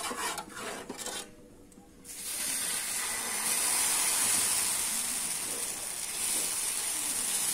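Dosa batter sizzling steadily on a hot iron tawa set on high flame as it is poured on, the hiss starting about two seconds in after a brief lull.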